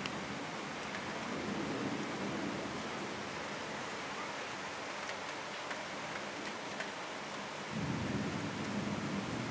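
Thunderstorm: a steady hiss of heavy rain, with a low rumble of thunder swelling about a second and a half in and again near the end.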